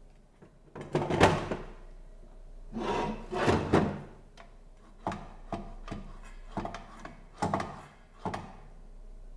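Makita HS009G cordless circular saw being handled with its motor off while its base plate is tilted to a bevel: two longer scraping rubs, then a run of short clicks and knocks of the plate and its levers.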